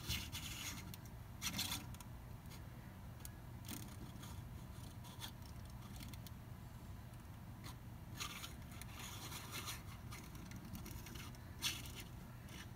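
Handling noise: bouts of scraping and rubbing, one at the start, a longer stretch later on and a brief sharp one near the end, over a low steady hum.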